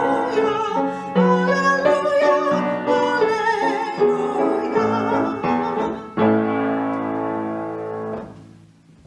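Closing instrumental music with piano. It ends on a long held chord that fades away near the end.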